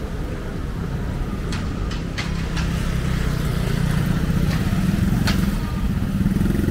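Street traffic with motorcycle engines running close by, growing louder through the middle as they pass, and a few sharp clicks.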